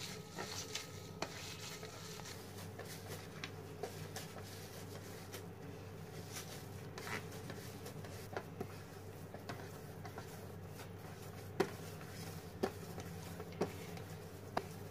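Hands kneading crumbly chhena (fresh curd cheese) on a plate, working it into a smooth dough: soft rubbing and pressing with light taps, about one a second near the end, over a steady low hum.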